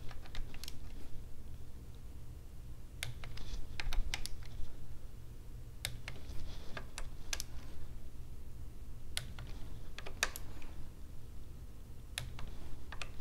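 Torque wrench tightening the cam-cover bolts of a Harley-Davidson Sportster engine to 100 inch-pounds, giving irregular sharp clicks in small clusters every second or two over a steady low hum.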